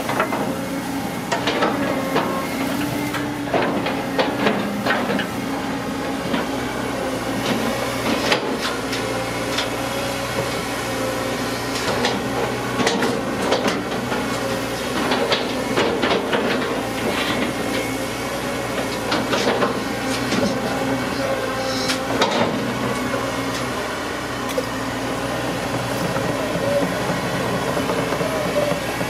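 Caterpillar long-reach hydraulic excavator running with a steady engine hum, with frequent knocks and clanks as the bucket and boom work the earth bank.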